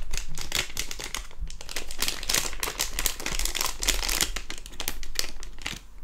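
A silver metallized anti-static bag crinkling as it is crumpled and pulled open by hand: a dense, irregular crackle throughout.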